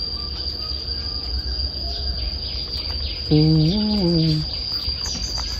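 Steady high-pitched insect buzz. About three seconds in, a short hummed voice rises and falls for about a second.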